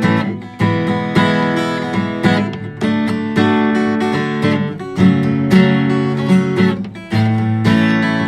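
Instrumental passage of a song: an acoustic guitar strumming chords, with the sound dropping back briefly twice between phrases.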